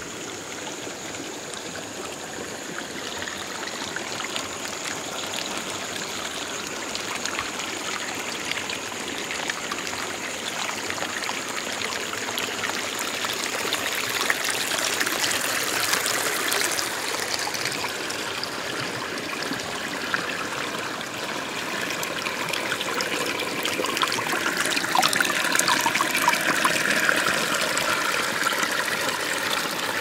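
Small forest stream trickling and splashing over mossy rocks, growing louder in the second half. A thin, high steady tone sounds through the first half.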